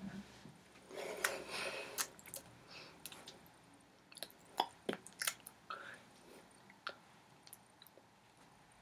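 Close, irregular soft clicks, taps and rustles of hands and sleeves moving while signing, mixed with small mouth sounds such as lip smacks and breaths. The sounds are denser around the first two seconds.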